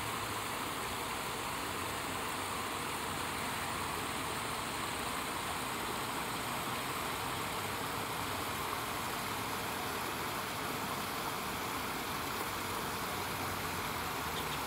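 Steady rush of a small spring-fed creek, water spilling over rocks in a low cascade.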